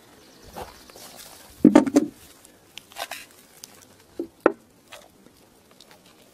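A pistol is set down on a hard tabletop, giving a quick cluster of clunks about two seconds in. A few lighter taps and clicks from handling follow.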